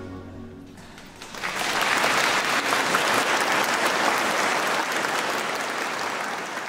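The last notes of the song fade out, then about a second in a congregation breaks into applause, which holds for a few seconds and slowly dies away near the end.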